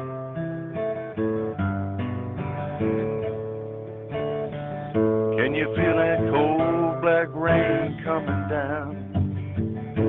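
Acoustic guitar strummed as a song intro, chords on a steady pulse. From about halfway a brighter melody line comes in over it, rising and bending in pitch with a wavering vibrato, before the plain strumming returns near the end.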